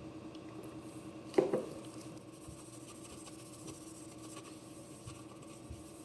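A single sharp knock about a second and a half in, like a tool or object set down on a hard surface, amid faint handling clicks and a steady low hum.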